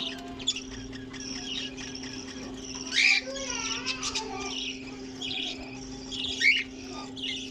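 A colony of budgerigars chattering and warbling, with many short overlapping chirps, over a steady low hum.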